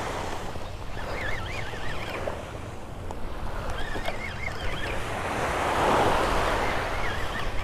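Small waves breaking and washing up a sandy beach, with wind on the microphone. A faint wavering whine comes and goes three times as a spinning reel is cranked in.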